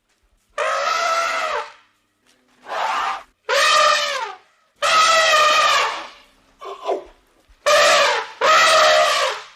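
A series of about seven loud, drawn-out animal calls, each up to about a second long, with short pauses between them.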